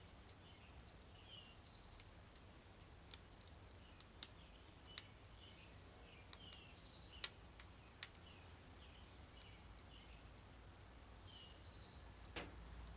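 Faint, scattered clicks of a lock pick working the pins of a Master Lock 7-pin tumbler padlock held under medium tension, with a sharper click about seven seconds in and another near the end. Faint bird chirps repeat in the background.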